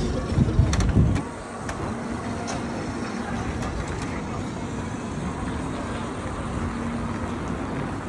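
Small electric utility vans driving past on a street: a steady low hum with tyre noise, and a louder low rumble in the first second or so, with a few faint clicks.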